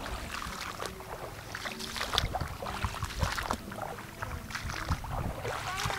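Shallow floodwater sloshing and splashing irregularly as people wade through grass and grope in the water.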